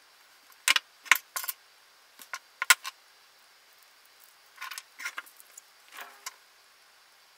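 Small plastic and metal parts of a European wall plug and small hand tools being handled on a wooden tabletop: a quick run of sharp clicks and light clatter in the first three seconds, then softer scraping handling noises around five to six seconds in.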